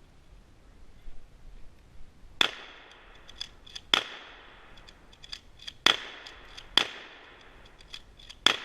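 BB gun firing five shots, each a sharp crack with a short high ring after it, with quieter clicks between the shots.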